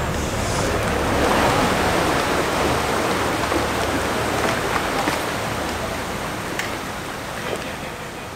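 Steady rushing noise like surf or churning water, with a low rumble beneath, slowly fading out near the end.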